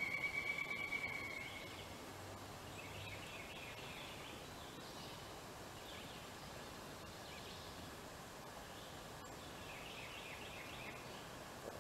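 Wild turkey gobbler gobbling, a fast rattling call that ends about a second and a half in. After it come only a few faint bird chirps.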